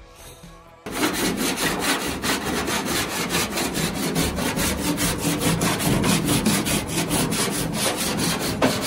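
Hammer striking sheet metal in a fast, even rhythm of blows, about six a second, bending an edge over. Each blow stretches the metal slightly, which puts a curve into the sheet.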